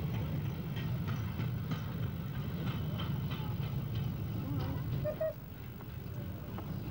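Miniature electric tram running along its track: a steady low rumble with a run of clicks from the wheels on the rails, and a short squeak about five seconds in, after which it runs a little quieter.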